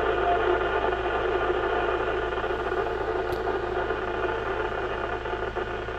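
Static hiss from a ham transceiver's speaker tuned to 29.640 MHz FM on the 10-meter band: a steady rush of receiver noise with no station coming through. There is one sharp click a little past the middle.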